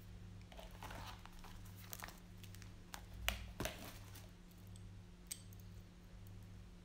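Faint clicks and rustles from handling, scattered over a low steady hum, the sharpest pair of clicks about three seconds in.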